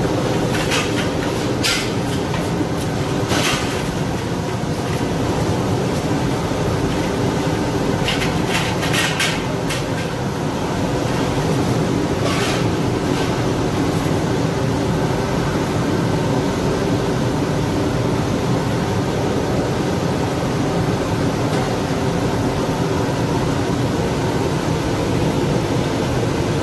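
Steady, loud roar of a busy commercial kitchen: a large aluminium pot at a full boil over its burner. A few sharp metal clanks come in the first half, as vessels knock against the pot.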